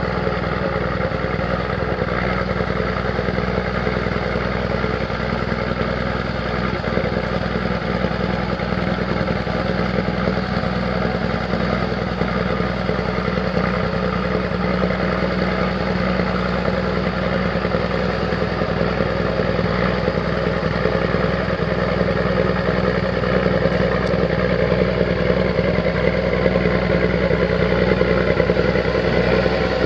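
The 14-litre Cummins six-cylinder diesel of a 1981 Steiger Cougar III tractor running steadily at a constant speed, growing a little louder over the last several seconds.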